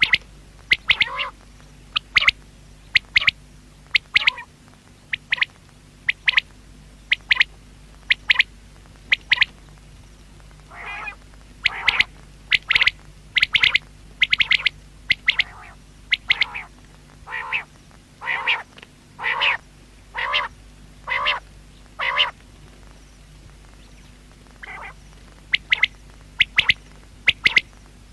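Common quail calling: a run of short, sharp notes about once a second, some in quick pairs or groups, with longer calls that sweep lower through the middle stretch.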